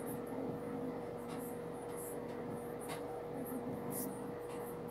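Plush toys being handled close to the microphone: faint rustling and a few soft clicks about once a second, over a steady faint hum.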